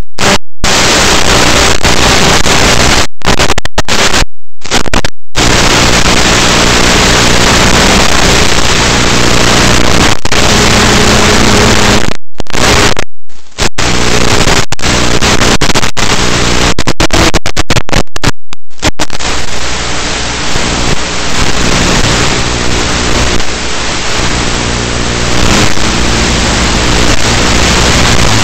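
Loud, steady static hiss with a low hum underneath, broken by a handful of abrupt silent gaps: the noise of an analog FPV video receiver's audio channel, typical of the Eachine EV800D goggles recording with no clean sound from the plane.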